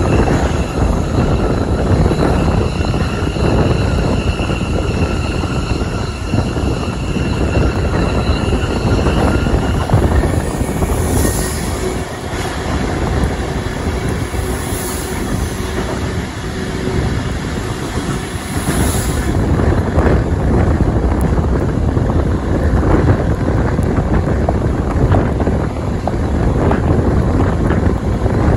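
Running noise of a steam-hauled heritage passenger train, heard from beside the carriage with wind, with a thin high tone over the first ten seconds. About ten seconds in, an electric double-deck suburban train passes close on the next track for about ten seconds, adding a rushing hiss that swells three times. After that the steady rumble of the moving train returns.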